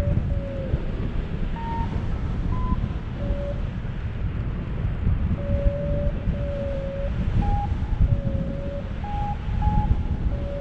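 Wind buffeting the microphone in flight, with a paragliding variometer beeping short tones that change pitch, some lower and some higher.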